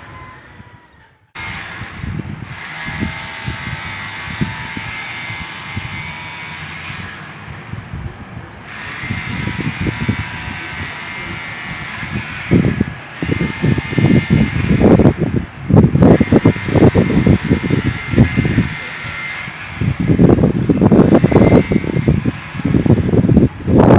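Martelete (demolition hammer) starting suddenly about a second in, its motor whining over rapid hammering; from about halfway it pounds louder in several spells of a few seconds each, breaking concrete.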